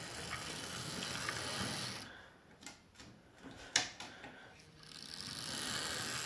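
Hornby OO-gauge model locomotive running on its track: the electric motor and wheels whirr close by, fade as the engine moves away, with a few sharp clicks from the track, then grow louder again as the tender comes back past.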